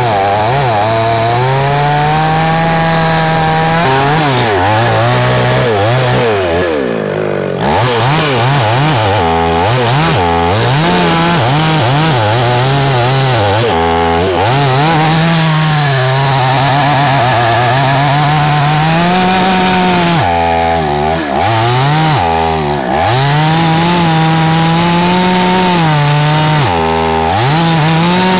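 Two-stroke petrol chainsaw cutting into the base of a tree trunk. The engine pitch keeps rising and falling as the chain works through the wood, with several brief drops to a lower speed.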